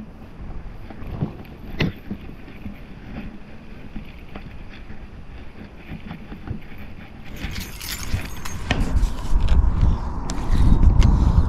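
Wind buffeting the camera microphone, building to a loud low rumble in the last few seconds. Over it come scattered clicks and knocks from handling the spinning reel and rod while a hooked carp is played.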